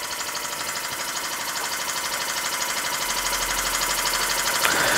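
Court Lodge MK1 model steam engine running fast: a rapid, even chuffing and hissing of exhaust steam from its single brass cylinder, slowly getting a little louder.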